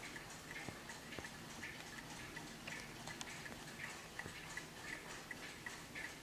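Serviced Warmink Dutch pillar mantel clock's mechanical movement ticking steadily, with quick, evenly spaced ticks.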